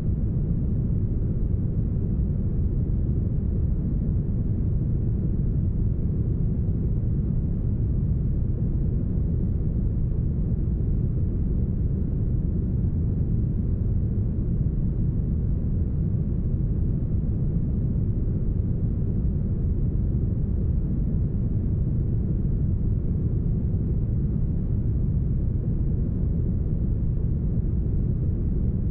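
Deep, smoothed brown noise: an even, steady rush weighted heavily to the low end, muffled, with no high hiss.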